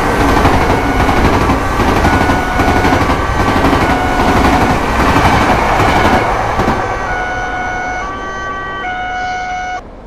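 Railroad crossing warning alarm sounding a repeating pattern of stepped electronic tones over the rumble and clatter of a passing train. The train noise fades after about six seconds, leaving the alarm alone until it cuts off suddenly near the end.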